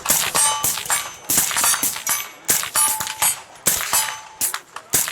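Suppressed gunfire on a range: a string of sharp shots, roughly one a second. Hits on steel targets ring with a clang after some of them.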